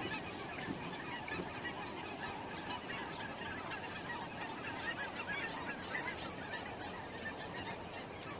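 A large flock of geese calling, with many overlapping honks forming a steady, dense chorus. It cuts off suddenly at the end.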